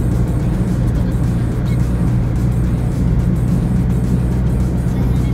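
Steady low drone of a modified Hyundai i20's engine and road noise heard from inside the moving car, with background music over it.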